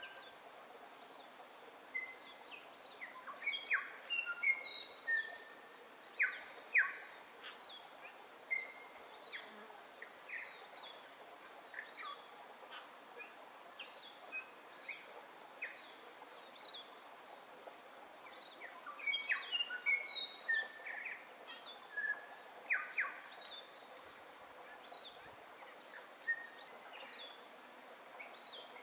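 Birdsong: several birds calling in short chirps and whistles over a faint steady background hiss, with busier spells about four to seven seconds in and again around twenty seconds.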